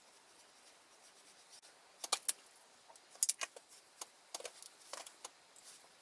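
A series of light, sharp clicks and clatters, like small hard objects being handled and set down, starting about two seconds in with a quick cluster a little past the middle.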